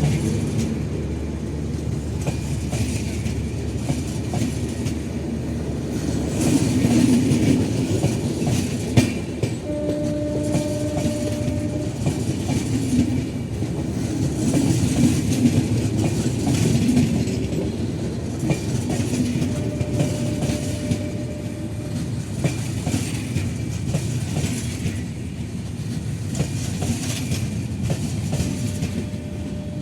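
A passenger train running on the track: a steady rumble with the wheels clattering over rail joints. A faint held tone sounds briefly about ten seconds in, again about twenty seconds in and near the end.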